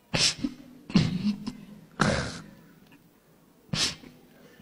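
A person crying: four short, sharp, breathy sobs and sniffs about a second apart, some with a brief catch in the voice.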